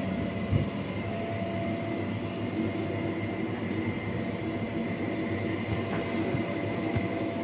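Steady hum and rumble of air-conditioning machinery running, with a constant whine over it. A short low thump about half a second in.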